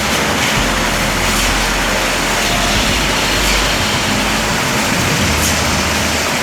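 Steady loud machine noise with a low engine rumble that drops away and returns a couple of times.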